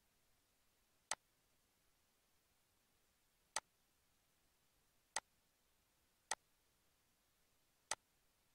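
Five sharp single clicks of a computer mouse button at irregular intervals, over near silence.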